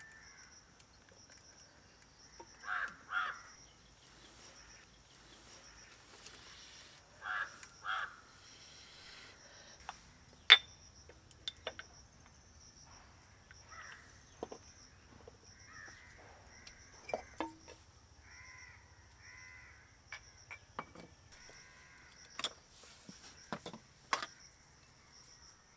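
Crows cawing, two caws about three seconds in and another two about seven seconds in, over sharp clinks and taps of a spoon against jars and clay pots, the loudest a single clink about ten seconds in. A faint steady high tone runs underneath.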